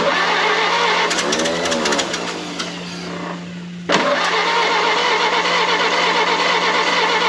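Electric starter cranking the 1932 Ford Model B's four-cylinder engine, in two tries. A first crank of about three and a half seconds stops, then a second crank starts abruptly about four seconds in and keeps going. The choke is open and the engine has a fuel delivery problem.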